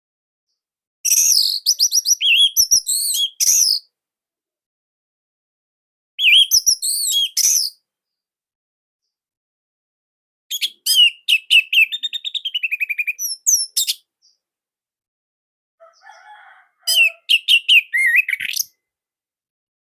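Orange-headed thrush (anis merah) singing in four loud bursts of fast, varied, high phrases with quick trills, each a second or more long, separated by silent pauses of a few seconds.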